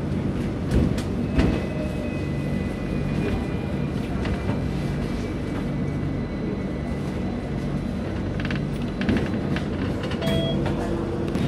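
A Hong Kong double-decker tram heard from its upper deck while running along the rails: a steady low rumble and hum of the motor and steel wheels, with scattered sharp clicks from the track. An oncoming tram passes close alongside near the end.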